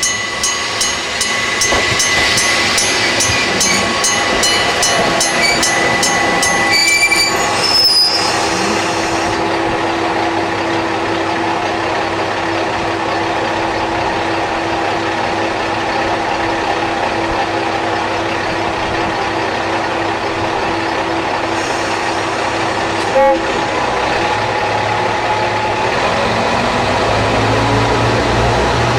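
Electric-bell level-crossing warning bell striking rapidly and evenly, stopping about 7 seconds in. Then a Tsugaru Railway diesel railcar's engine runs steadily at the crossing, rising in pitch near the end.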